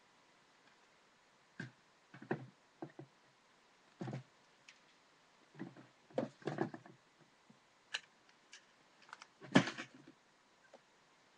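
Irregular short knocks and rustles of small pet-supply containers being picked up and moved about on a carpeted floor, with the loudest knock near the end.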